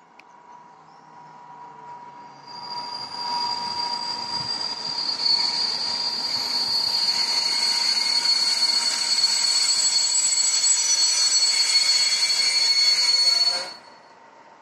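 Passenger train's wheels and brakes squealing high-pitched over a rumble as it slows into the station, growing louder for several seconds; the squeal stops suddenly near the end as the train comes to a halt.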